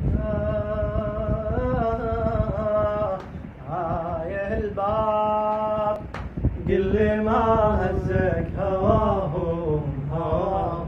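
A radood's solo male voice chanting a latmiya melody unaccompanied and dry, with no added effects. He holds long, ornamented phrases with a wavering pitch and breaks briefly for breath about three and six seconds in.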